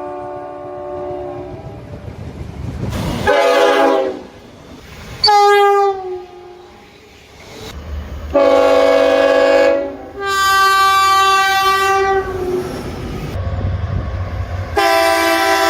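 Train air horns sounding chords as trains pass: about six short horn blasts spliced one after another. Several drop in pitch as the train goes by (the Doppler effect), with the rumble of the passing train between blasts.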